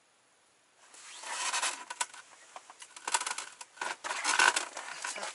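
Rustling and scattered small clicks and taps of clothing and fishing gear being handled, starting about a second in and coming in uneven bursts.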